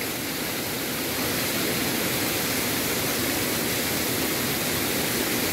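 Shallow rocky stream running over stones and pebbles, a steady rushing of water.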